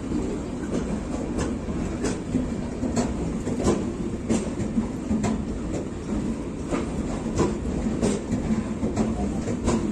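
Chennai Egmore Mahal Superfast Express rolling past on the rails: a steady low rumble with wheels clicking over rail joints every half second to a second.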